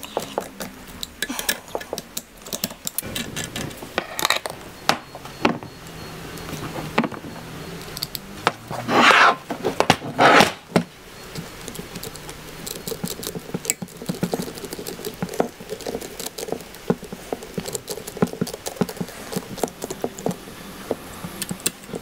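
Light clicks and clatter of hand tools and metal parts being handled, as radiator hose clamps are tightened with a socket tool and a screwdriver. Two louder rasping scrapes come about 9 and 10 seconds in.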